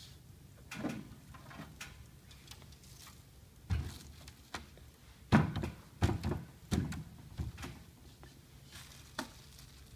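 Irregular knocks and thunks of resin Chiavari chair parts being handled and fitted together during assembly, with a cluster of the loudest knocks in the middle.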